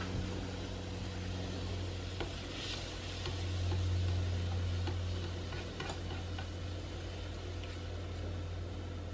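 Water simmering in a shallow pan as two eggs poach, over a low steady hum, with a few light clicks and taps of a plastic spatula against the pan.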